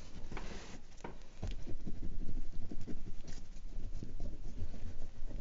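Oil pastel worked rapidly across the surface of a painting: quick, scratchy back-and-forth strokes that pick up about a second and a half in.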